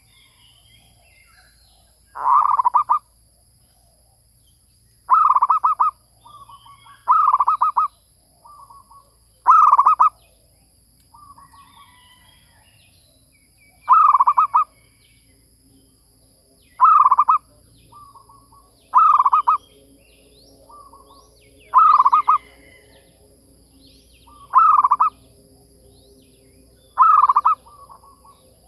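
Zebra dove (merbuk) cooing: a rapid, stuttering coo of under a second, repeated about every two to three seconds, with softer short notes between the loud calls.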